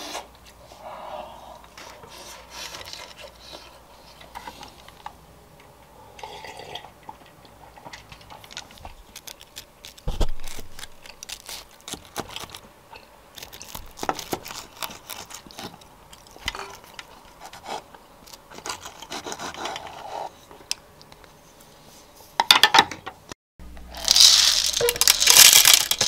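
Knife and fork cutting through a toasted sandwich on a wooden board: crunching crust, cutlery scraping and occasional clicks. Near the end, coffee beans poured from a jar into an electric grinder's plastic hopper, a loud rattling shower of beans.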